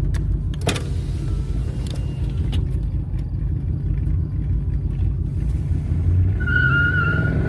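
383 stroker small-block Chevy V8 in a Camaro idling with a steady, pulsing low rumble. There is a single click about a second in and a short high-pitched tone near the end.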